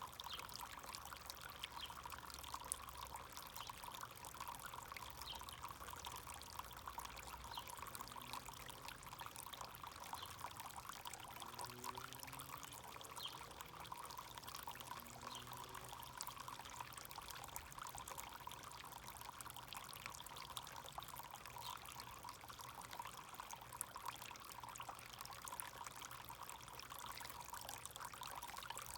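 Backyard garden fountain with water pouring and trickling steadily into its basin.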